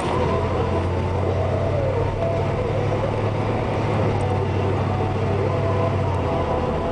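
Car engine and road noise heard from inside the cabin while driving at low speed: a steady low hum that eases slightly near the end.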